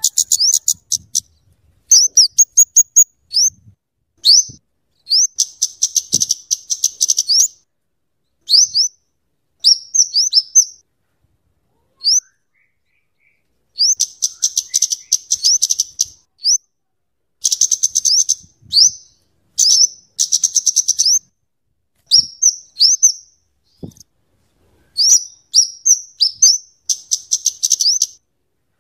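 Flowerpecker (kemade / cabe-cabean) calling: rapid runs of sharp, high-pitched chattering notes, each a quick downward sweep, in bursts of one to three seconds with short pauses between them.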